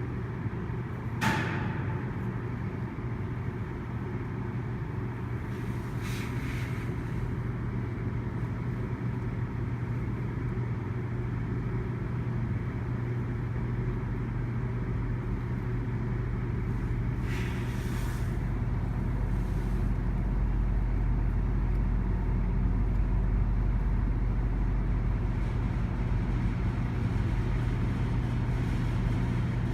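GO Transit diesel commuter train running at a station: a steady low engine hum that grows louder in the second half. A short sharp sound comes about a second in, and there are two brief bursts of hiss, about 6 and 18 seconds in.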